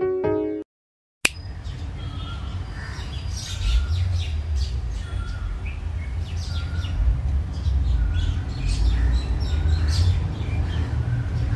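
Birds chirping in the trees, many short high calls one after another over a steady low rumble. A plucked lofi music track ends in the first second, followed by a brief silence before the birds come in.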